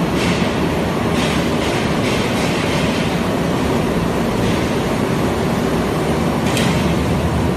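Machinery of a french fries production line running: a steady, loud mechanical din from potato conveyors and washing machines, with a few short hissing bursts.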